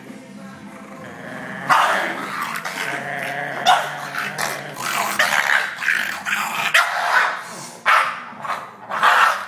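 Boston terrier growling and barking in repeated loud bursts that begin about two seconds in.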